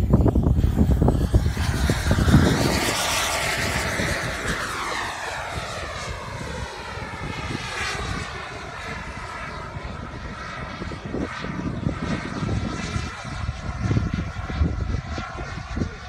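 Jet aircraft flying past: a loud rushing jet noise whose whine sweeps down in pitch as it goes by, about three to six seconds in, then a steadier, fainter roar as it draws away.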